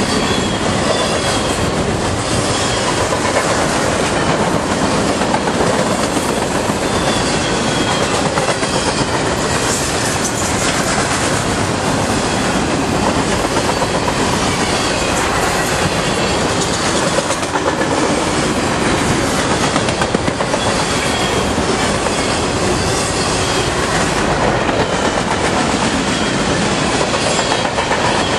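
Freight cars of a garbage train rolling past at close range: a steady, loud rumble and clatter of steel wheels on the rails, with faint wheel squeal now and then.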